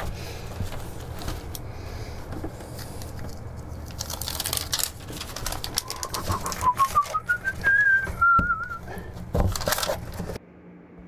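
Hands rustling and pressing fabric and a ventilation mat into place, with louder scraping bursts about four seconds in and again near the end. Between them, a short whistled phrase rises in small steps, holds, then wavers. The sound cuts off suddenly near the end.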